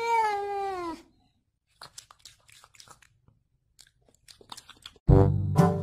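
A domestic cat's single meow, lasting about a second, its pitch rising a little and then falling. A few faint clicks follow, and music starts near the end.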